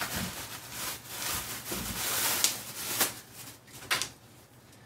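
Clothing being handled: a polo shirt rustling as it is taken from a bag and unfolded. The rustling is busiest in the first three seconds, with a few sharper clicks, then dies down.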